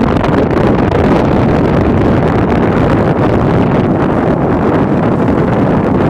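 Strong wind buffeting the microphone: a steady, loud rushing rumble.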